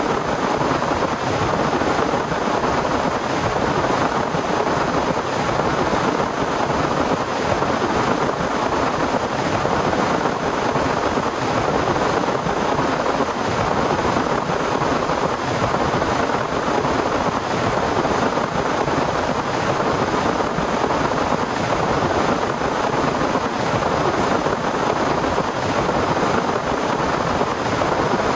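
Heavy rain pouring down steadily, an even rushing hiss that does not let up.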